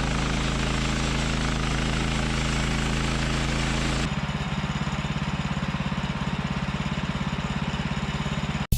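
An engine running steadily. About four seconds in, the sound cuts abruptly to a different engine note with a rapid, even pulsing, and it stops suddenly just before the end.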